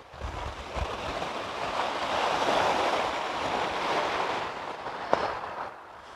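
Sea wave breaking and washing up a shingle beach, swelling and then fading away over several seconds. A single sharp click near the end.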